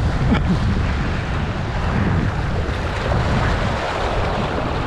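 Sea waves washing and splashing over the boulders of a rock breakwater, with wind buffeting the microphone in a steady low rumble.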